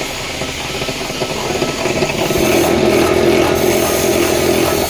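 B11 wire stripping machine running, its motor noise growing louder about two seconds in as a 2.5 mm wire is fed through and stripped.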